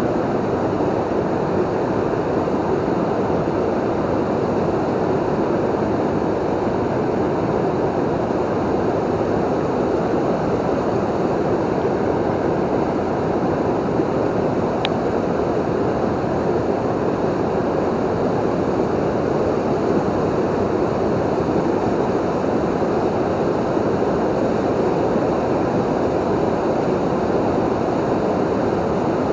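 Steady rush of water pouring over a river waterfall, an even, unbroken wash.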